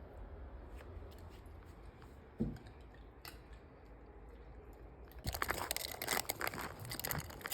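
Snow crunching in a dense, crackly run that starts about five seconds in, after a quieter stretch broken by a single thump.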